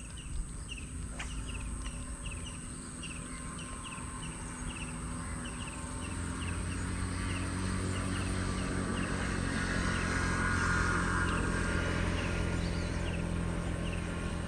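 Short falling chirps repeated about twice a second over a steady outdoor background, with a low rumble that swells in the middle.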